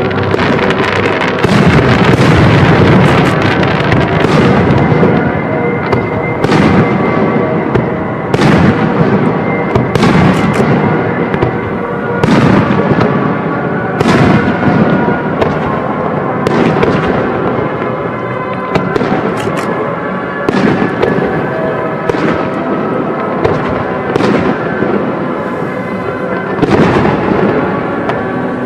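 Aerial firework shells bursting one after another in a display, a sharp bang about every one and a half to two seconds over continuous crackle and rumble.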